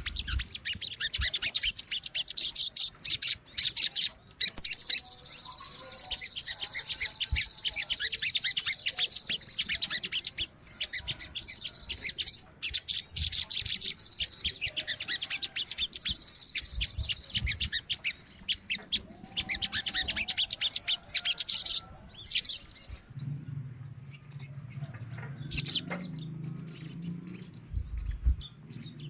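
Several crimson sunbirds singing together: rapid high chirps running into long, fast trills, thinning out to scattered chirps after about twenty seconds. A low steady hum comes in under the thinner chirping near the end.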